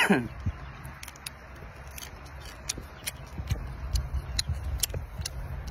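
The shell of a cooked mantis shrimp being cracked and peeled by hand: a run of small crackles and clicks. There is a brief, louder falling sound right at the start.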